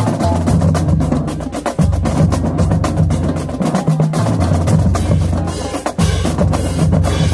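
Marching drumline playing a loud, fast cadence: rapid snare strokes and rolls over booming bass drums.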